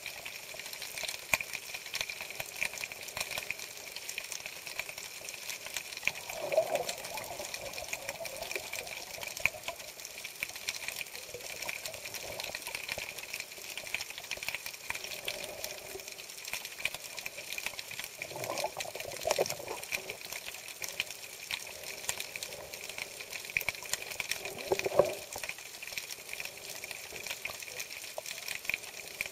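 Underwater sound heard through a camera's waterproof housing: a steady crackle of fine clicks, with a few louder, muffled rushes of water about six, nineteen and twenty-five seconds in.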